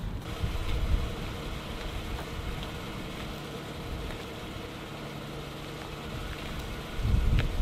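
A vehicle engine idling steadily, with a louder low rumble near the end.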